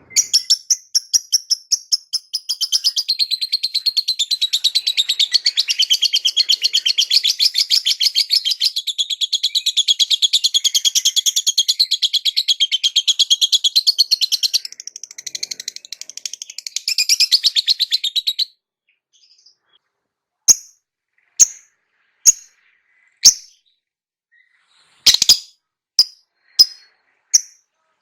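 Lovebird song: a long, fast, unbroken chattering trill that stops about 18 seconds in, followed after a short pause by single sharp chirps about one a second, with a quick run of several near the end.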